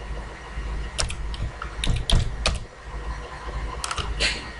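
Computer keyboard keys being typed as a password is entered: irregular key clicks in small clusters with short pauses between them.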